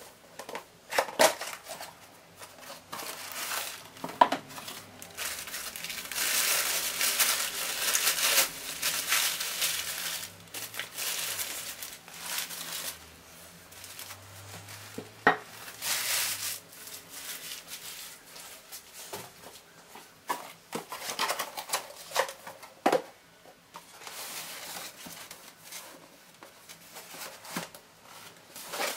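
Cardboard packaging being handled and unpacked: rustling and crinkling of box flaps and wrapping, in long stretches, with a few sharp knocks and clicks.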